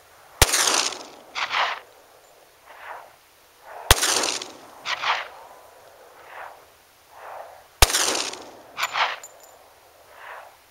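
Three shots from a Glock 20SF 10mm pistol firing Double Tap 165-grain bonded rounds, about four seconds apart. Each sharp crack trails off and is followed about a second later by a second, softer report.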